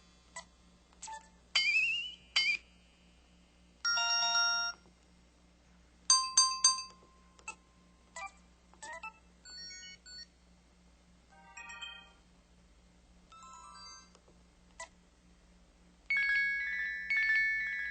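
An EV-K100 mobile phone playing its built-in effect sounds one after another: short electronic beeps, chimes and jingles with brief gaps between, one sweeping upward in pitch about two seconds in.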